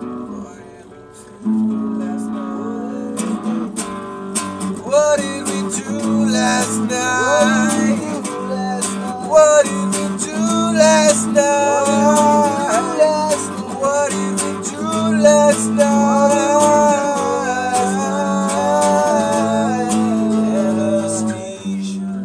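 Acoustic guitars played together, strumming chords. The playing picks up about a second and a half in, and a bending melody line rides over the chords from about five seconds in.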